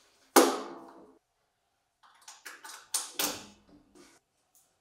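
A quick-connect clamp on a galvanized steel duct joint snaps shut: one sharp metallic snap with a short ringing tail. About two seconds later comes a string of lighter clicks and knocks.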